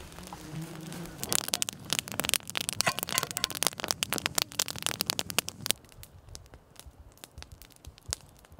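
Spruce-wood campfire crackling and popping with many quick snaps. The snaps come thick and loud for the first half, then thin out and grow quieter from about six seconds in.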